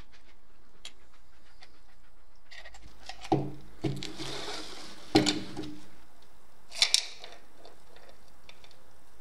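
Liquid trickling from a plastic measuring jug into a plastic bowl, then several hollow knocks and clatters as the jug of rusty bolts and bike parts is handled and set down on a wooden bench. The loudest knocks come in pairs, about halfway through and again about two-thirds of the way through.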